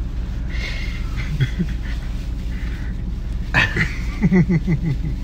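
A man laughing in a run of short, quick bursts about three and a half seconds in, after some quieter breathy chuckles, over a steady low hum.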